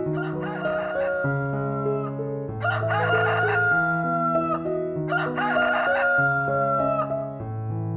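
A rooster crowing three times in a row, each crow about two seconds long and falling slightly in pitch at the end, over background music with a keyboard melody.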